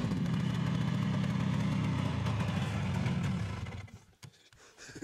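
Yamaha Bravo snowmobile's two-stroke engine idling steadily, then dying away about three and a half seconds in.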